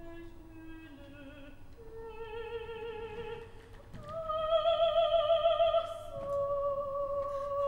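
A woman's operatic voice sings the line "mais je ne peux pas sourire" in slow, long-held notes with strong vibrato. Each note steps higher than the last, and the voice is loudest from about four seconds in.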